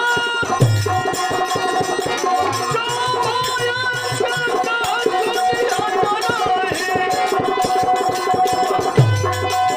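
Instrumental passage of Indian devotional folk music in teentaal: a held drone and a winding melody line over fast, dense rattling percussion, with low hand-drum strokes near the start and again near the end.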